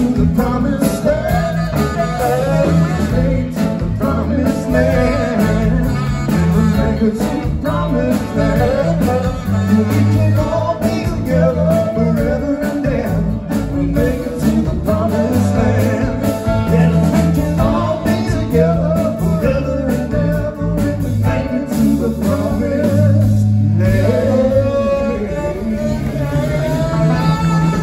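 Live band playing: saxophone lines over electric guitar, bass, drums and keyboards.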